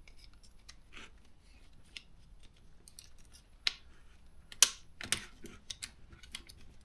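Scattered light clicks and taps of a hand tool working the small plastic and metal parts of a chainsaw carburetor's linkage, with a few sharper clicks between about three and a half and five seconds in.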